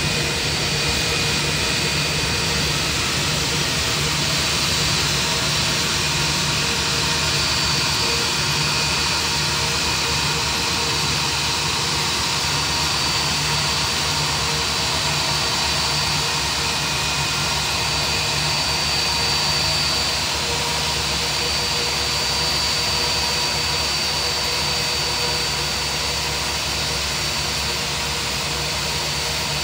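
IAE V2500 turbofan engine of an Airbus A320-family jet running as the aircraft taxis in: a steady rush of air with a high, steady whine above it.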